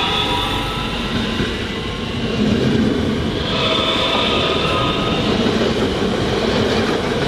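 A Class 442 Talent 2 electric multiple unit runs past close by. There is a steady loud rolling of wheels on the rails, with the electric drive's whine layered over it.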